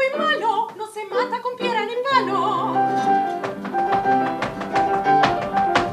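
A woman singing a wavering, vibrato line with grand piano accompaniment, then the piano carrying on with held chords while a run of sharp percussive strikes sounds through the second half.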